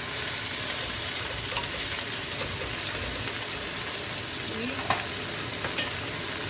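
Chicken leg quarters sizzling steadily as they fry and brown, with a few sharp clicks now and then.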